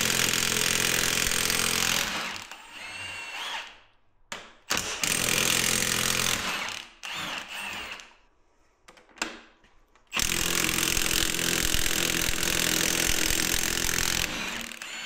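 Milwaukee 2864-20 M18 Fuel 3/4-inch high-torque cordless impact wrench hammering on diesel cylinder-head bolts in three long bursts, about two, three and four seconds long, with pauses between. After the first and last bursts the hammering eases into a lighter run with a rising whine as the loosened bolt spins out.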